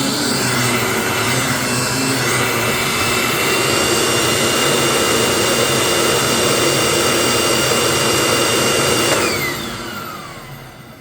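Hoover WindTunnel upright vacuum cleaner running at full power with a steady high whistle. About nine seconds in it is switched off and the motor spins down, its whine falling in pitch as it fades. The owner calls the motor healthy and the belt a little stretched.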